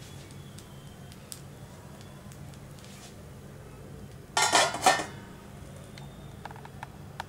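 Metal lid clattering and ringing as it is set down on a kuzhi paniyaram pan, two quick knocks about four and a half seconds in, over a steady low hum.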